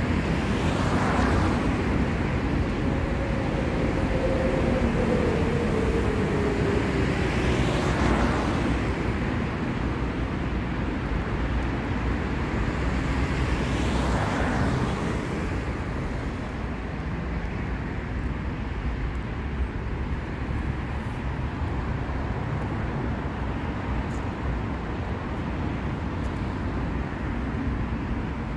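City street traffic: a steady low rumble, with three vehicles passing close by in the first half, one with an engine note sliding down in pitch as it goes past. The traffic is calmer in the second half.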